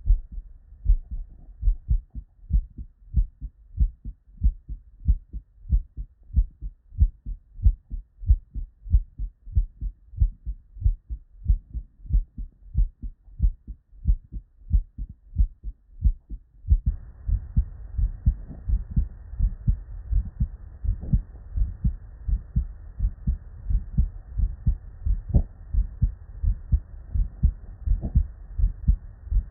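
Normal human heart sounds heard through a stethoscope: a steady, even run of paired low thumps, the first and second heart sounds (S1 and S2) of a normal heart. About 17 seconds in, the sound switches to another recording with a steady hiss under the beats.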